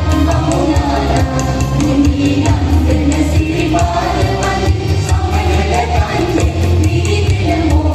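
Mixed choir singing a Sinhala Buddhist devotional song (gee vandana) over a strong, steady low bass, amplified through microphones and loudspeakers.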